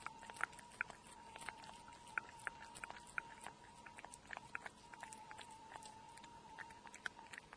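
A cat chewing and licking wet flaked fish cat food from a plate, making soft, irregular wet clicks and smacks.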